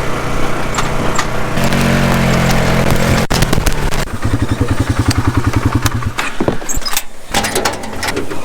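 A motor vehicle engine running steadily, stepping up in pitch about a second and a half in. After a sudden break it runs at a lower, regularly pulsing idle, then fades out about seven seconds in, followed by a few sharp clicks.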